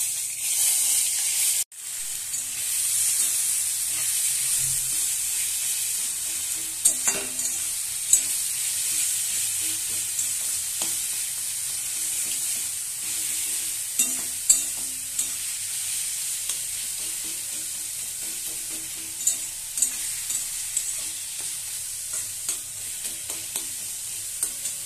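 Grated bottle gourd frying in hot mustard oil in a metal kadai, a steady sizzle, while a wooden spatula stirs it. Scattered sharp knocks and scrapes of the spatula against the pan.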